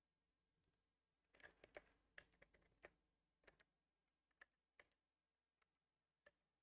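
Faint, irregular clicking of a computer keyboard and mouse: a quick cluster of clicks about a second in, then single clicks spaced further apart toward the end.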